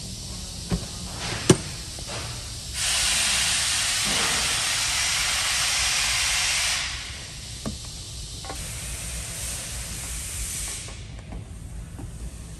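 A steady, even hiss starts suddenly about three seconds in, runs for about four seconds and stops, followed by a fainter, higher hiss for a couple of seconds. Two sharp clicks come in the first two seconds.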